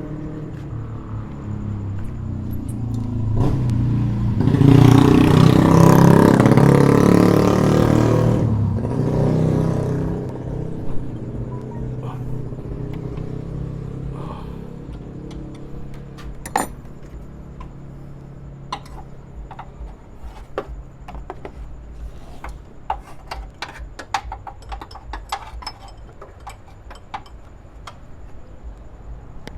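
A motor vehicle engine running, swelling loud for a few seconds near the start and then settling to a steady low hum. In the second half, irregular small metallic clicks and taps of hand tools are heard.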